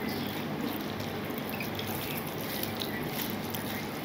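Soft wet squishing and faint ticks of fingers mixing rice and lentil dal on a steel plate, over a steady low background hum.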